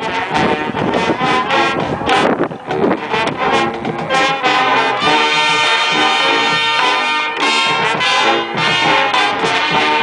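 Marching band brass and percussion playing a funk arrangement: drum hits punctuate the brass for the first few seconds, then the brass holds full sustained chords from about five seconds in.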